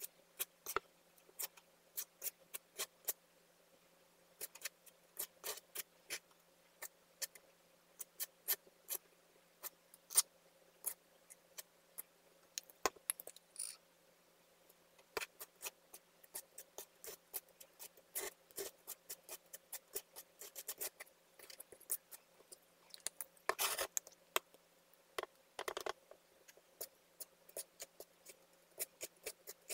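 Small metal palette knife clicking and scraping against a hard board as it mixes thick decorative plaster with acrylic paint: many quick, irregular clicks, with two longer scrapes about three-quarters of the way through.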